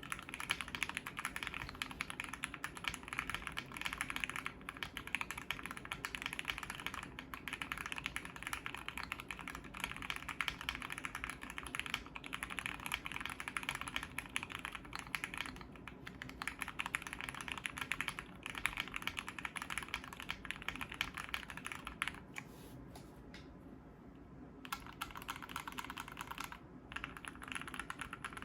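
Steady typing on a Brutal60 custom 60% keyboard with lubed Gateron CJ linear switches, GMK keycaps on an FR4 plate, dampened with a two-layer tape mod and poly-fill in the case. The keystrokes ease off briefly about three quarters of the way through.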